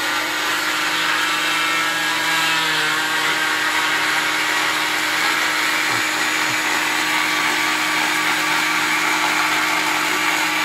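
Oscillating cast saw with a vacuum dust-extraction hose running steadily, with a constant motor hum and hiss, as it cuts through a green fiberglass forearm cast.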